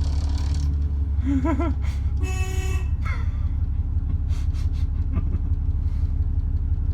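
Horn of an Alexander Dennis ALX400 double-decker bus giving one short toot, about half a second long, about two seconds in, over the steady rumble of the bus's idling engine.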